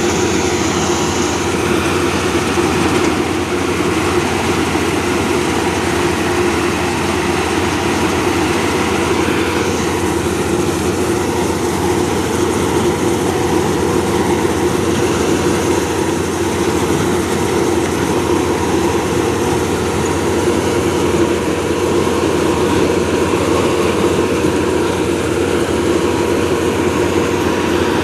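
Engine of a rice harvesting machine running steadily at a constant pace, with no let-up.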